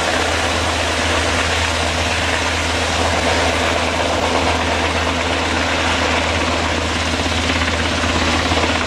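HM Coastguard AgustaWestland AW189 search and rescue helicopter in flight: rotors and turbine engines running with a steady, loud thrum throughout.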